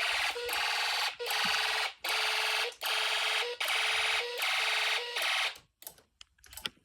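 Homemade Snap Circuits fire alarm sounding a loud electronic tone that pulses on and off, under a second per pulse, during a drill. It cuts off abruptly about five and a half seconds in as the alarm is silenced, and a few light clicks follow.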